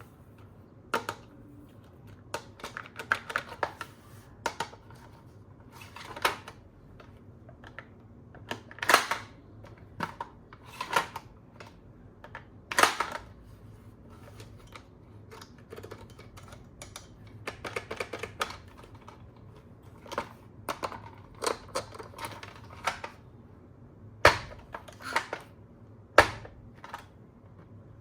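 Hard plastic toys and packaging being handled: irregular clicks, taps and knocks, with a few sharper, louder snaps.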